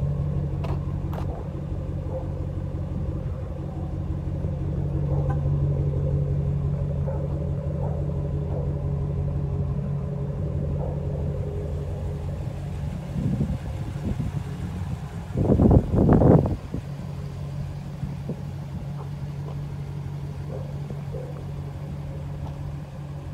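2015 Ram 1500 pickup's engine idling steadily. About two-thirds of the way through there are two short, loud bursts of noise.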